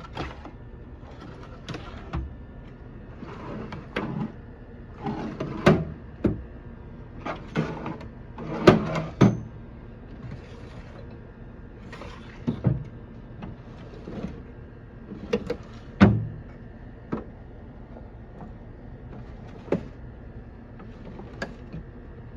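Steel toolbox parts being handled: irregular knocks and clunks, some with short sliding scrapes, the loudest about a third and two-thirds of the way through.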